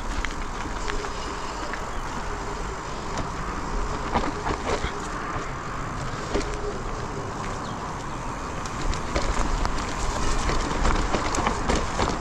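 Electric mountain bike being ridden along a dirt trail: a steady rolling, rushing noise with frequent clicks and rattles from the bike.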